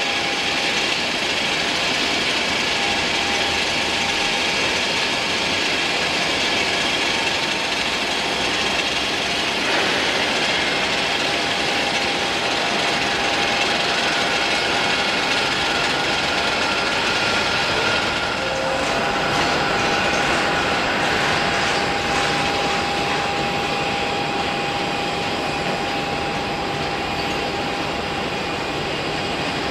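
Airbus A320-family airliner's twin jet engines at takeoff thrust during the takeoff roll: a steady, loud roar with a high whine held over it.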